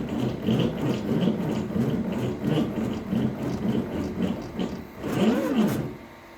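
CNC machine's motors whining as the machine moves, the pitch rising and falling over and over in short sweeps, with one longer rise and fall about five seconds in.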